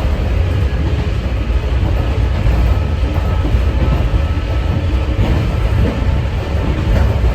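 Interior running noise of a Sangi Railway 801 series electric train, a former Seibu 701 series, in motion: a steady heavy rumble of wheels on rail, with a faint steady whine from its traction motors, which are of the MT46 type.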